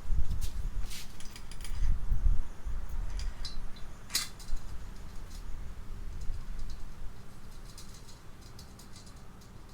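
Light metallic clicks and taps of small tools or parts being handled, with one sharper click about four seconds in, over a low rumble of handling that dies away after about seven seconds.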